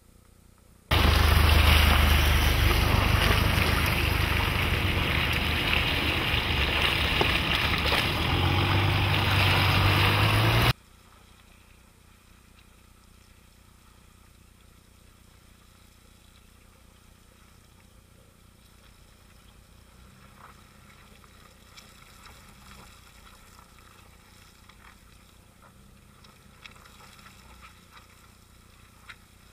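Loud rushing wind and driving noise with a deep rumble, picked up by a camera mounted on the side of a Mercedes GL 350 as it drives over muddy off-road ground. The noise stops abruptly about 11 s in, leaving only a faint low hum with a few light knocks.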